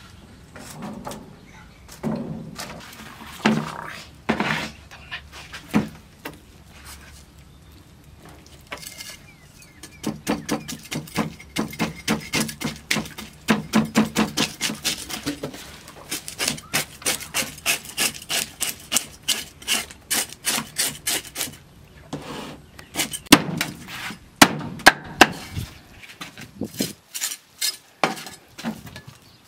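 Cleaver scraping the scales off a giant snakehead fish on a wooden chopping board: long runs of quick rasping strokes, about four a second, with a few louder knocks of the blade on the wood.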